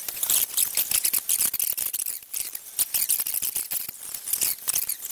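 Background chatter of a crowded exhibition hall played back in fast motion, the voices sped up into a rapid, high-pitched chirping and squeaking.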